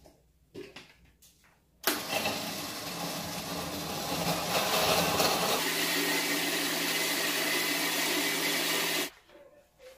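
Countertop blender running, puréeing tomatoes, onion and garlic for a salsa. It starts suddenly about two seconds in, settles into a steadier hum partway through and stops suddenly near the end. A few light knocks come before it starts.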